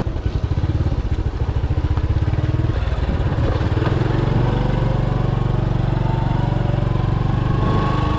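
Motorcycle engine running as the bike is ridden, with a steady fast pulse of its firing and its note slowly rising in the second half.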